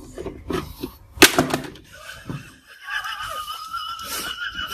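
Pie Face toy game being cranked: a run of plastic clicks from the turning handle, then one sharp snap about a second in as the spring-loaded plastic hand flips up and splats whipped cream onto the pug's face. A wavering high tone holds through the second half.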